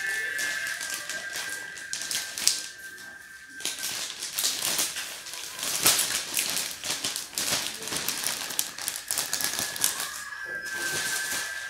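Clear plastic bag crinkling and crackling as it is handled, in quick irregular crackles that are thickest through the middle. A steady high tone sounds under it at the start and again near the end.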